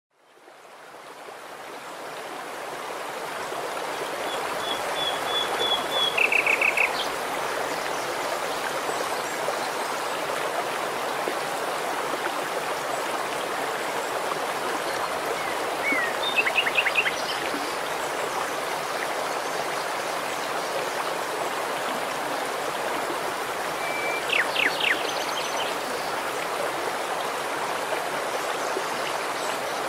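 Shallow rocky stream rushing and babbling steadily over stones, fading in over the first couple of seconds. A bird calls three times over the water, each call a brief run of high notes.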